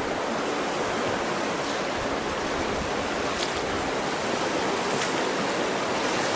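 Floodwater rushing and flowing in a steady, even wash of noise.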